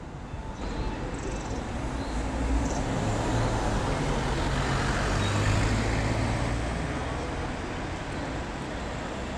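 Street traffic noise, with a motor vehicle's engine hum swelling toward the middle and then easing off as it passes.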